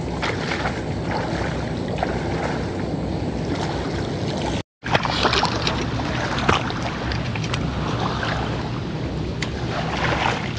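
Feet wading through shallow, muddy floodwater, with water sloshing and splashing at each step, over steady wind noise on the microphone. The sound cuts out for a moment about halfway through.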